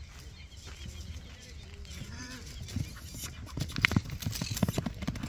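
Hoofbeats of a horse galloping toward the microphone on dry, loose ground, growing louder from about three seconds in as the horse nears.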